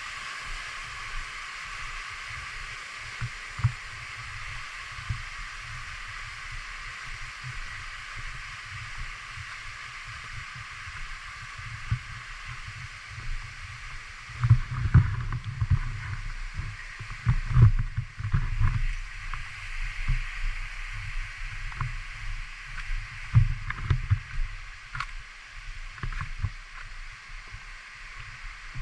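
Steady rush of waterfall water, with irregular low buffeting on the microphone that is heaviest around the middle.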